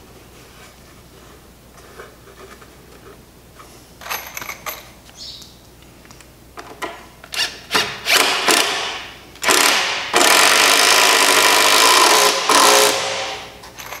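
Cordless drill driving a screw down through a 6x2 timber into the post beneath. A few short bursts start the screw, then one long, loud run of about three seconds near the end as it sinks home.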